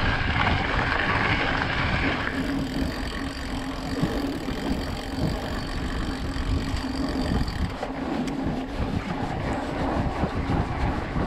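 Wind buffeting a GoPro's microphone as a mountain bike rolls along, with the knobby Maxxis tyres crunching on a gravel track. About two seconds in the crunching hiss drops away as the bike moves onto a softer dirt path, and the low rumble carries on.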